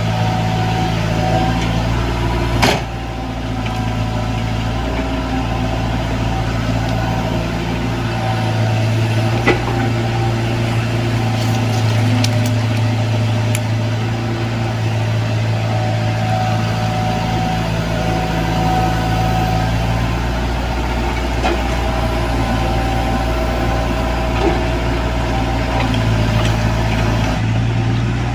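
Komatsu PC75UU mini excavator's diesel engine running steadily, its level and tone shifting as the hydraulics work. A sharp knock sounds near three seconds in and another near ten seconds in.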